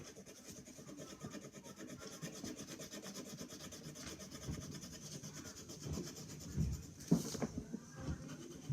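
Colouring on paper: quick, even back-and-forth scribbling strokes as the hair is coloured in. About seven seconds in there is a single knock.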